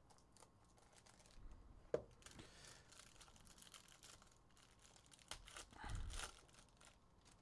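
Foil wrapper of a Panini Prime Racing trading-card pack being torn open and crinkled, faint, with a sharp tick about two seconds in and a louder rustle near the end as the cards are pulled out.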